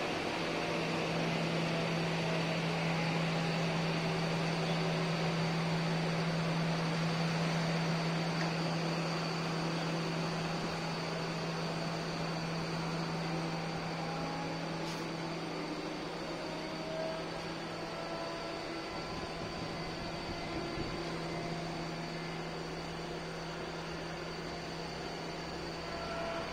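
Rotary water well drilling rig running steadily: a constant low machine hum under an even mechanical rush, with a few faint short whines now and then.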